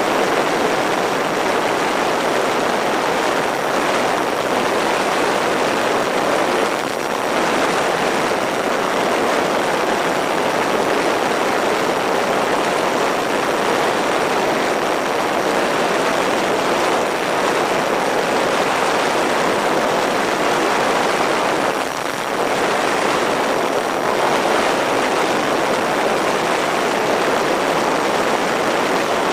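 Onboard sound of an MFD Crosswind Nimbus Pro twin-propeller electric RC plane in flight: a steady rush of airflow and propeller noise over the camera, dipping briefly twice.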